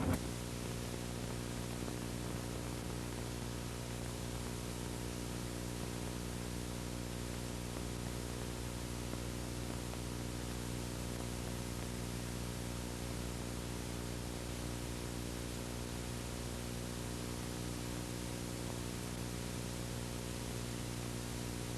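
Steady hiss with a constant mains hum and its overtones, the noise of an analog VHS recording with no programme sound on it.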